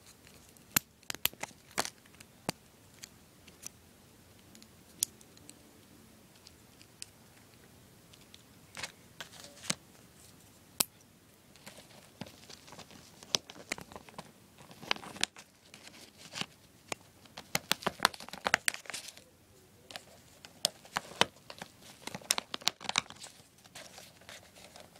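Plastic Lego Technic pieces clicking and rattling as they are handled and pressed together, with scattered sharp clicks and rubbing close to the microphone, the clicks coming more densely in the second half.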